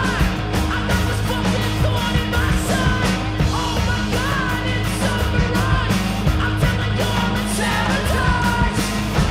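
Loud background music with a steady drum beat and sung, yelled vocals.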